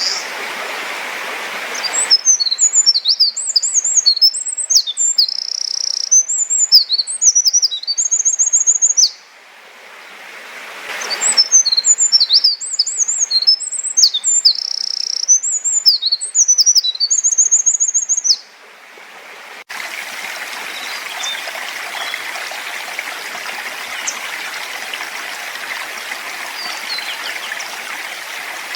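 A small songbird sings two long, loud songs of rapid high-pitched notes and trills, each lasting about seven seconds with a short pause between. The songs ride over the steady rush of a stream, which is left alone with faint distant chirps after the second song.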